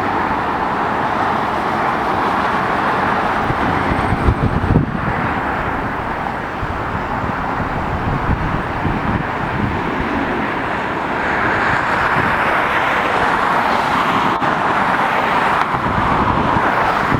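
Steady jet engine noise from an Airbus A350-1000's Rolls-Royce Trent XWB-97 engines, a loud rushing that swells a little in the second half, with wind buffeting the microphone at the start and about four seconds in.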